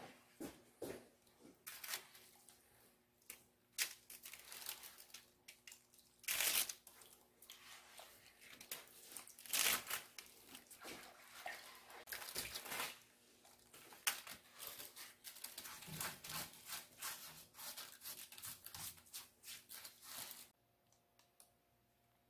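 Plastic sheeting crinkling and rustling in irregular bursts as a gloved hand scrubs a salt-fired ceramic piece with a wet sponge. It stops about twenty seconds in.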